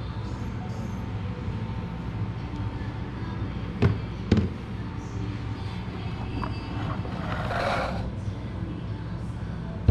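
Steady low hum of indoor room noise, broken by two sharp knocks about half a second apart near the middle, then a brief rustling hiss a few seconds later.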